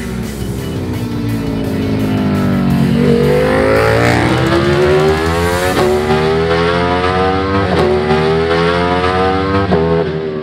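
Ducati Panigale V4's V4 engine through a Termignoni 4USCITE exhaust at full race pace: the note falls over the first few seconds, then the bike accelerates hard, the pitch climbing through three quick upshifts about two seconds apart.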